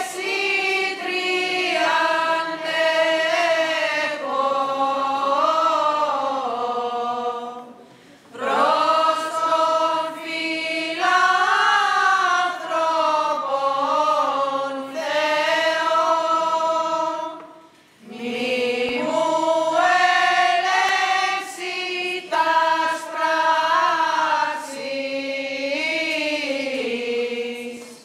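Congregation of women's voices chanting an Orthodox Byzantine hymn to the Virgin Mary together in one melodic line, in long held phrases with brief breaths about 8 and 18 seconds in.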